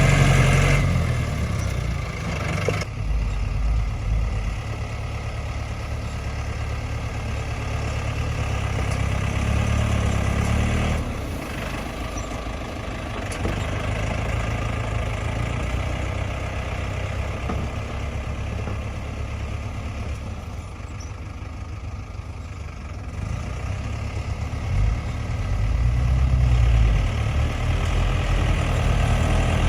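Tractor engine running steadily under varying load, its low drone swelling and easing, quieter for a few seconds around the middle and louder again near the end.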